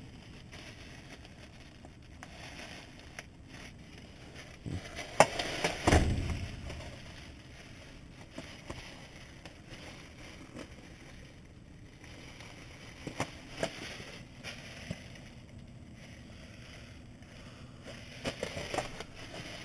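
Plastic garbage bags rustling and crinkling as they are pulled and shifted by hand, with a few sharp knocks from objects inside them. The loudest knocks come about five and six seconds in.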